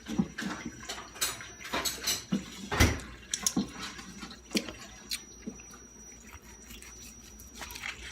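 Knife and utensils clicking and knocking on a cutting board while a juicy roast tri-tip is handled and sliced, with wet, drippy sounds from the meat and one heavier thump about three seconds in.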